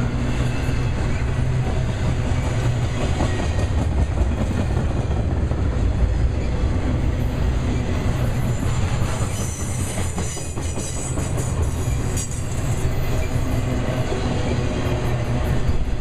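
Intermodal freight cars loaded with trailers and containers rolling past at speed: a steady, loud rumble of steel wheels on rail, with clicking as wheels cross rail joints.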